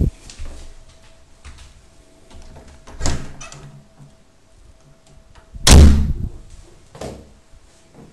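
A door being moved and knocked, in a series of knocks and thuds: a sharp knock at the start, a thud about 3 seconds in, the loudest and longest bang about 6 seconds in, and a smaller knock about a second later.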